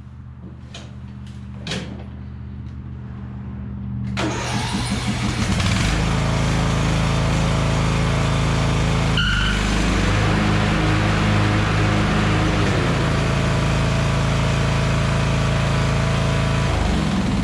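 Craftsman riding mower engine running. About four seconds in, the mower deck engages and the spinning blades add a loud, steady rushing noise over the engine. Near the end the deck disengages and the blade noise drops away, showing the deck now shuts off with its worn idler arm replaced.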